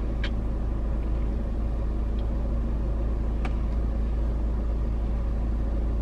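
Steady low rumble of a car idling, heard from inside the cabin, with two faint clicks: one just after the start and one about three and a half seconds in.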